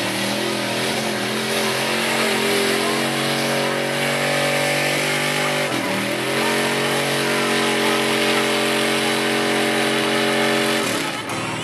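Pickup truck engine revving hard and held at high revs under load in deep mud, the pitch dipping sharply and recovering about six seconds in, then falling away near the end.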